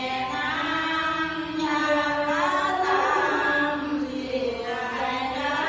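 Buddhist chanting by a group of voices, in long held notes that slide slowly from pitch to pitch.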